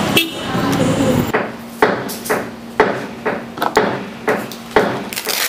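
Sharp knocks on a hard tabletop, about two a second, as something is struck by hand on the table, after a moment of street noise and voices.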